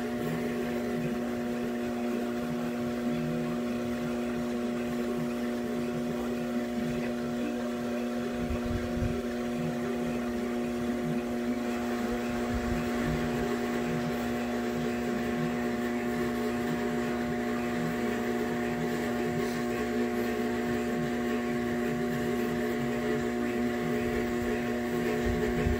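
Electric drive motor of a large mirror-grinding turntable running at a constant speed: a steady hum that holds one pitch.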